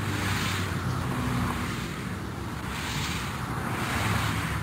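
Steady rumble and rush of road traffic, swelling and easing slowly a few times, with a low hum underneath.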